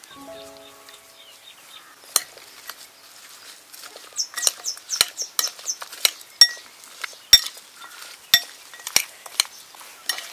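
A metal spoon stirring and tossing vegetables in a ceramic bowl, clinking and scraping against the bowl in irregular sharp knocks that start about two seconds in.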